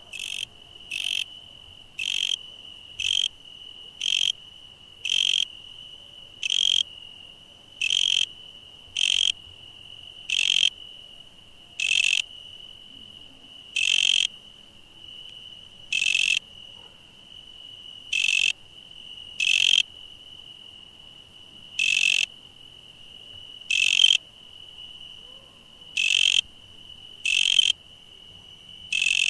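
Insects chirping at night: a steady high-pitched trill goes on underneath, while louder short chirps repeat roughly once a second at a slightly uneven pace.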